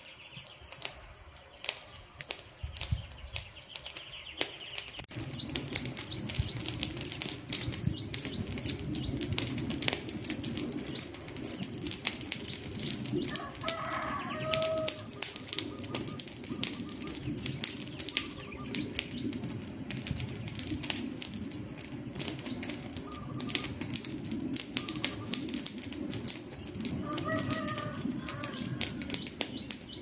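Wood campfire crackling, with many sharp pops and snaps over a steady rush of flames that grows fuller about five seconds in. Two brief pitched calls sound about halfway and near the end.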